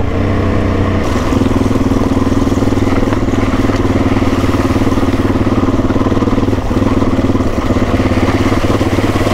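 Suzuki DR-Z400E's single-cylinder four-stroke engine running at steady revs while the bike is under way, its note settling into a constant pitch about a second in.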